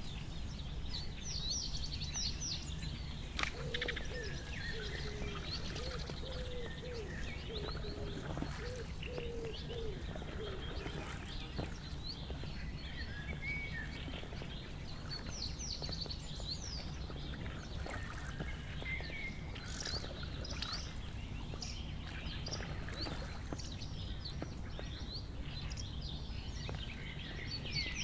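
Wetland ambience: many small birds chirping and singing. A run of lower, softer repeated calls comes from about four to ten seconds in, over a steady low background rumble.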